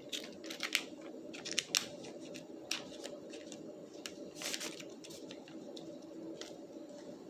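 Trading cards and their packaging being handled: scattered short rustles and clicks. A steady low hum runs underneath.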